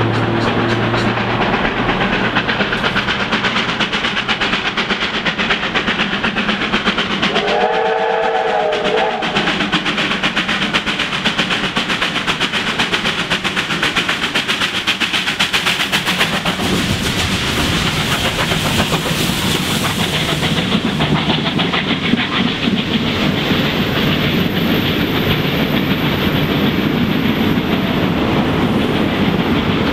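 Two R class 4-6-4 Hudson steam locomotives double-heading a passenger train, their exhausts beating rapidly as they approach and pass. A chime steam whistle sounds once for about two seconds, roughly eight seconds in. In the second half the carriage wheels roll past, clicking over the track.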